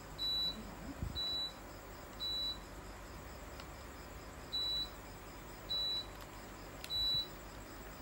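Midea mini split air conditioner's indoor unit beeping six times, a short high beep for each remote-control button press, each beep acknowledging a received command.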